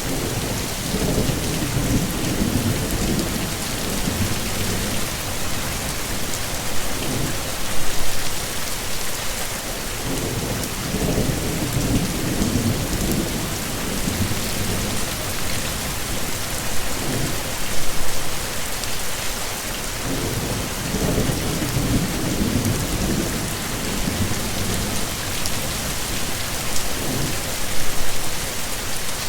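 Heavy rain falling steadily, with low rolling thunder rumbling in and out every few seconds and three brief louder swells.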